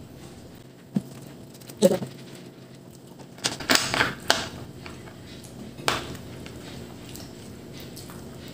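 Quiet mealtime sounds at a table: a few scattered clicks and knocks, with a short cluster of them a little after three seconds in, from eating pizza and handling a drinking glass.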